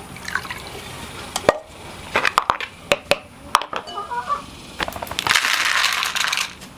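A plastic bowl knocked and set down on concrete in a series of sharp clicks, then dry cat kibble poured from a bag into the plastic bowl, a dense rattling rush lasting about a second.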